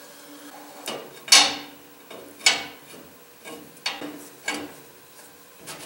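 Ratchet and long steel extension being worked through a truck's rear axle tube to reach the differential adjuster: a string of sharp metallic clicks and clinks at uneven intervals, the loudest about a second and a half in.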